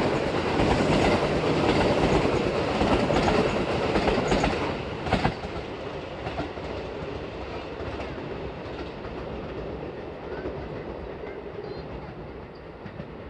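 Osaka Higashi Line local electric train running past and away along the tracks. It is loud at first, with sharp clickety-clack from the wheels over rail joints about five seconds in, then fades steadily as it pulls away.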